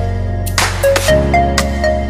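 Background music: an electronic track with held bass notes, a synth melody and a drum hit about every two seconds.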